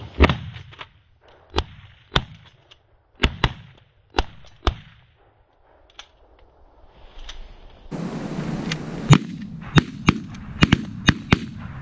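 A volley of shotgun blasts from several hunters firing at geese: about a dozen sharp shots in quick, irregular succession, in two bursts separated by a quieter gap of a few seconds midway.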